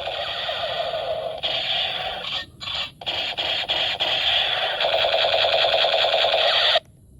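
Battery-powered toy gun running continuously, a fast buzzing rattle that breaks off twice briefly about two and a half and three seconds in, then stops abruptly near the end.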